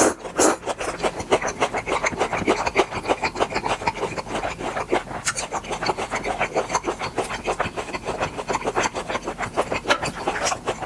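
Close-miked chewing of grilled beef intestines: a steady run of wet, crunchy clicks and rasps, several a second.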